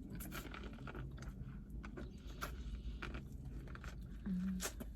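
Close-up chewing and biting: corn on the cob dipped in sauce being eaten, with soft crunches and small wet mouth clicks. A short closed-mouth hum near the end.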